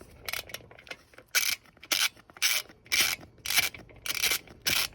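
Socket ratchet wrench being swung back and forth on a motorcycle seat bolt, a short burst of rasping ratchet clicks on each return stroke, about two a second, louder after the first second.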